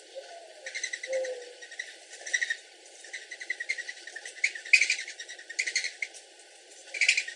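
Mourning doves' wings whistling in flight: quick runs of high, twittering whistles in several spurts, loudest about halfway through and near the end. A short, low cooing note comes about a second in.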